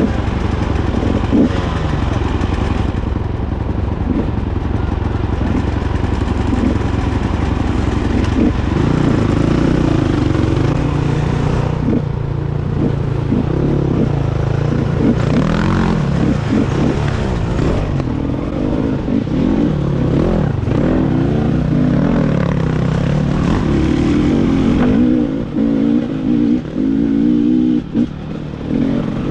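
Off-road motorcycle engines running, first steadily, then revving up and down with throttle blips and gear changes as the bikes ride away over rough ground.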